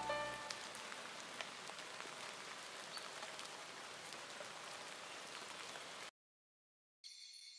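Recorded rain ambience, a steady patter with scattered drop ticks, as the last piano notes of a lo-fi track fade out in the first half second. It cuts to silence about six seconds in, and steady high tones of the next track start near the end.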